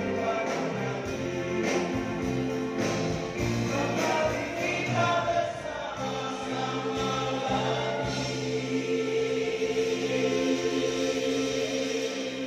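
Live band music with several voices singing together, ending on a long held note in the last few seconds.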